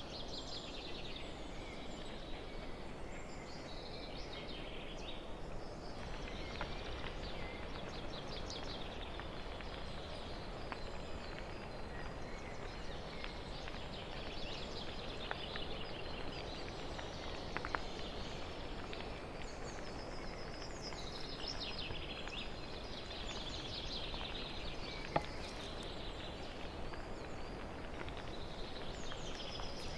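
Outdoor ambience: a steady hiss with birds singing short trilled phrases every few seconds, and a couple of faint ticks.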